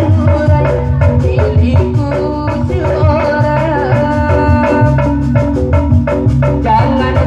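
Loud jaipong music: drums keep a steady, driving beat under pitched melody instruments, with a little singing.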